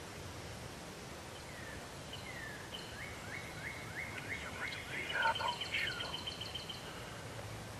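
Woodland birds singing: a run of quick down-slurred chirps, then a fast high trill, with a louder, lower call about two-thirds of the way through.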